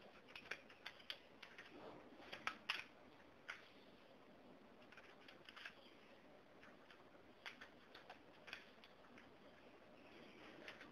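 Faint keystrokes on a computer keyboard: slow, irregular typing, single key clicks and short runs of clicks with pauses of a second or more between them, the loudest cluster about two to three seconds in.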